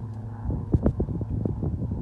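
Wind buffeting the microphone in irregular gusts over the steady drone of a light propeller plane flying overhead.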